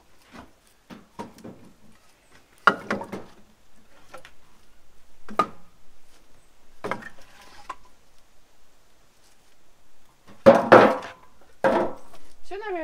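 Split firewood clattering as logs are pulled from a stack and tossed into a wheelbarrow: irregular wooden knocks and clunks, loudest in a quick cluster near the end.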